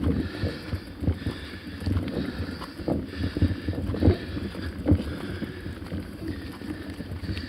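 Mountain bike riding over a rough trail: irregular knocks and rattles from the bike and its mounted camera, jolting several times a second.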